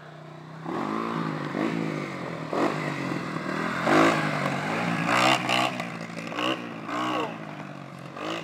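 Sport ATV engine revving hard in repeated surges as the quad climbs and turns around a dirt berm, the pitch rising and falling with each throttle blip, loudest about four seconds in.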